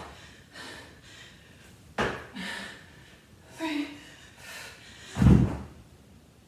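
Dumbbells and body hitting a rubber gym floor during devil presses: a sharp knock about two seconds in and a heavy thud about five seconds in, with hard breathing from the effort between.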